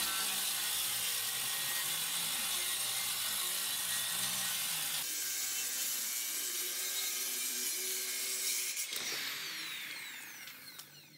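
Circular saw ripping a narrow strip off the edge of a plywood board, running steadily at full speed through the cut. Near the end the trigger is released and the blade coasts down with a falling whine.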